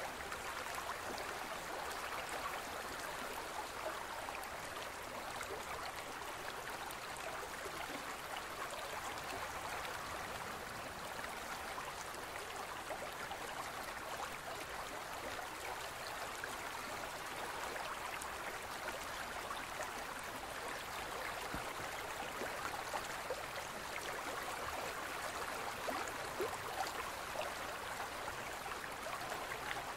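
Gentle stream running steadily: an even rush of flowing water with faint scattered splashes and trickles.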